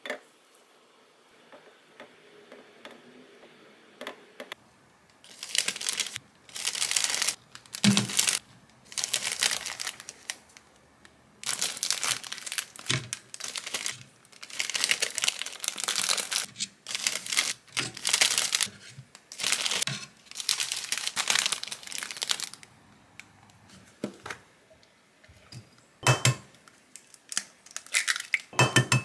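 Clear plastic treat bags crinkling and rustling in repeated bursts as small baked madeleines are slipped into them and handled. Near the end, a couple of sharp cracks as an egg is broken open over a glass jug.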